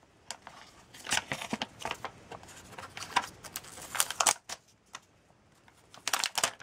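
Protective plastic film being peeled off a tablet's plastic back, crackling and crinkling in several short irregular bursts.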